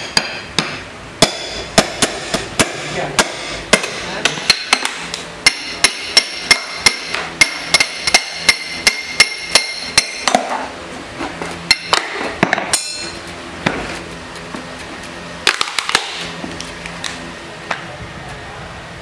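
Hammer blows on the plastic case of a lead-acid car battery, knocking the top off to open the cells: a quick run of sharp strikes, about two a second, some with a metallic ring, thinning to a few scattered blows after about thirteen seconds.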